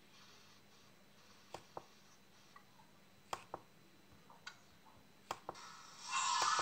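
Light clicks from working a laptop's pointing device, several coming in quick pairs. Near the end comes a brief, louder hissy rustle.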